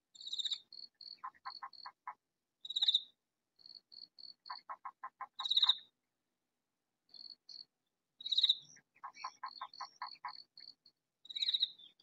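Katydid calling: loud, high rasping bursts about every three seconds, with quick, short high chirps in between. A second, lower call comes in three runs of five to seven quick pulses.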